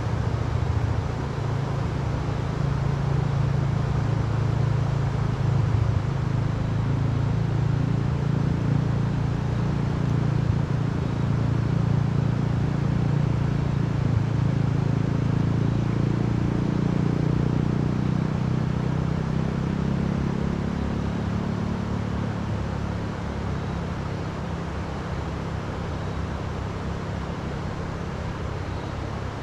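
A motor vehicle's engine running with a steady low hum, wavering in pitch about halfway through and fading over the last third, over a steady hiss.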